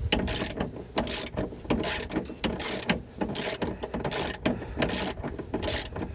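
Socket ratchet clicking in quick back-and-forth strokes, about two a second, as a rear shock absorber mounting nut is run off after being broken loose.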